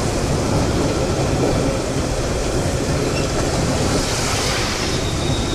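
A diesel-electric multiple unit (DEMU) train passing at close range, with a steady loud running noise of its wheels on the rails and its underfloor machinery.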